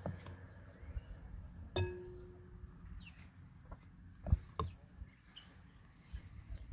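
A wooden ladle clinking and knocking against a glass bowl and clay jugs while a thick paste is scooped and poured: one ringing clink about two seconds in, and a few sharper knocks a little past the middle. Birds chirp faintly throughout.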